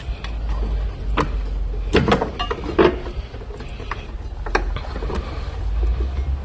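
A handful of short clicks and knocks, about six, scattered over a steady low rumble.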